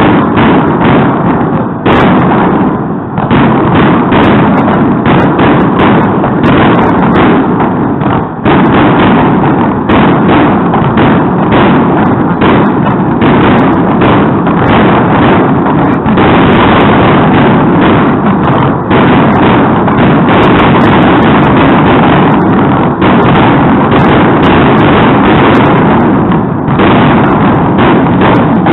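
Fireworks going off in a dense, continuous barrage of bangs and crackling, loud enough to push the recording near its limit throughout, with only brief dips at about 2 and 8 seconds in.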